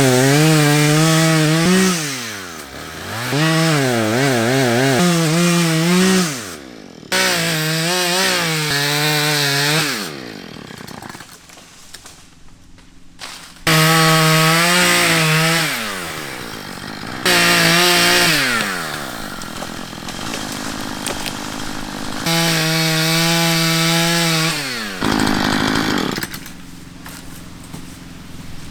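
Chainsaw revving to full throttle in about five bursts of a few seconds each, dropping back toward idle between them as it cuts wood. The chain is dull and loose.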